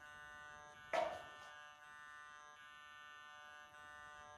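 Hornby Flying Scotsman model train buzzing steadily on low power as the locomotive creeps along the track, with one brief louder sound about a second in.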